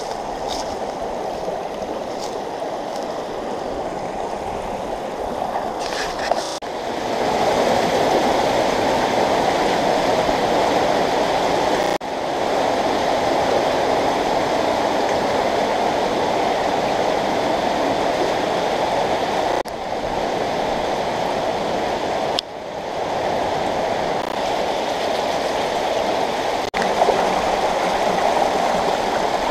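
Shallow stream water running over rocks and gravel: a steady rushing that jumps up or down in loudness abruptly a few times.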